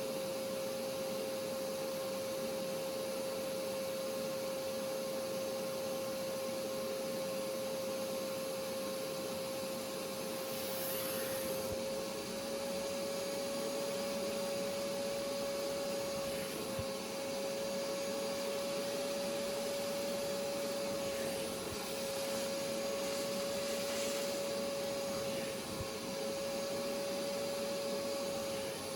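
Hoover pet-stain carpet cleaning machine's suction motor running steadily with a constant hum, its pitch shifting slightly a few times.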